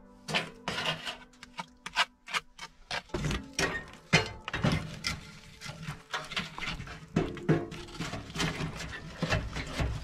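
Sharp taps and scrapes of bricklaying. Then, from about three seconds in, a steady run of knocks and scrapes as split firewood is pushed into the burning firebox of a small metal wood stove, over a low rumble.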